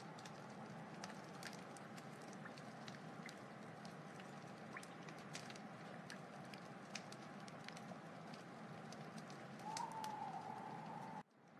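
Wood fire burning with a steady hiss and frequent small sharp crackles and pops, a thin steady whistle running under it. The sound drops out abruptly for a moment near the end.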